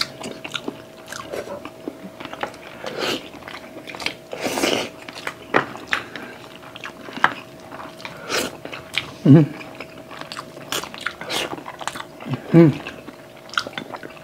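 Close-miked eating sounds: biting and chewing pork spare ribs and black rice eaten by hand, with irregular wet smacks and clicks of the mouth.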